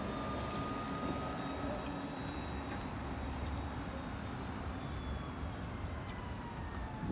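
Transit bus driving away, its drivetrain running with a thin steady whine over a low rumble; the whine slides lower in pitch near the end.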